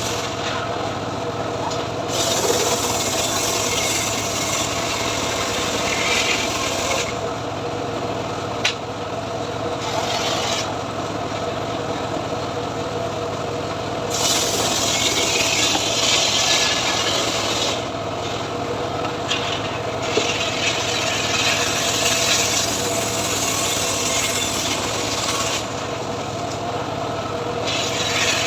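Homemade chainsaw running steadily while ripping a mahogany log lengthwise. A rasping cutting sound swells for a few seconds at a time and eases between strokes, several times over.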